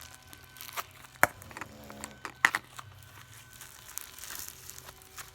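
Purple slime being stretched, torn and squished by hand, crackling irregularly, with two sharp pops about a second and two and a half seconds in.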